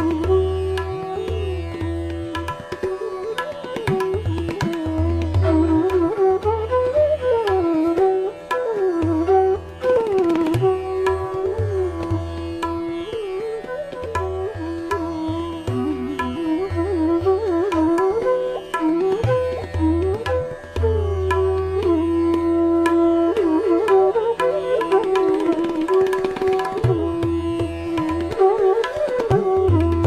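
Instrumental Indian classical-style background music: a melody gliding up and down over a steady drone, with tabla.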